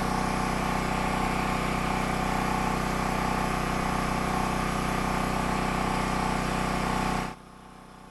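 Champion 3650-watt open-frame (non-inverter) generator running steadily at its governed speed, an even engine drone. About seven seconds in the sound drops abruptly to a much fainter steady hum.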